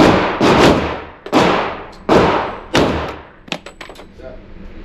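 Five pistol shots in quick succession, each with a long fading echo, followed by a few light clicks near the end.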